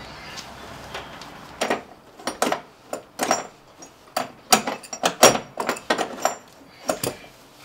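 A new car battery being wrestled into its tray in the engine bay: a dozen or so sharp, irregular knocks and clicks of the battery case against plastic and metal, starting about a second and a half in. It is a tight, awkward fit.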